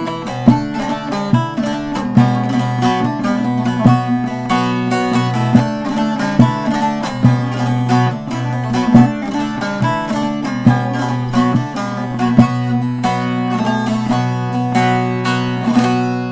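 Short-neck bağlama with a juniper bowl being played: a quick melody of plucked notes over ringing drone strings, the last notes dying away near the end.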